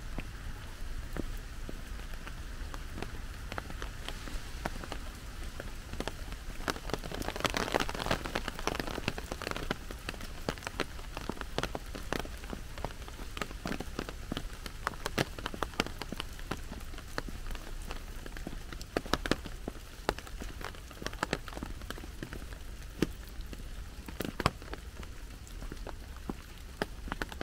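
Rain falling, with many separate drops tapping sharply close by and a steady low rumble underneath; the rain swells for a couple of seconds about a quarter of the way in.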